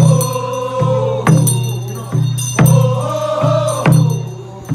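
Korean funeral bier song (sangyeo sori) sung by a group of voices, with a barrel drum (buk) beaten in a steady rhythm.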